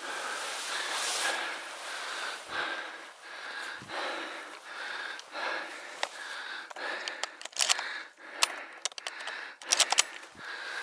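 Steady wading steps of a hunter in waders through wet bog grass and mud, about one and a half steps a second, with sharp clicks and crackles in the last few seconds.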